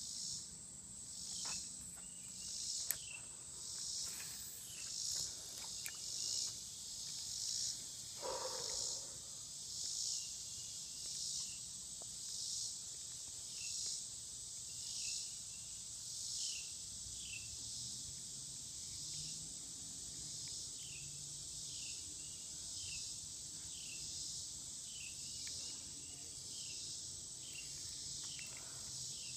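Insects singing in chorus: a high-pitched buzz that swells and fades about once a second over a steady high trill.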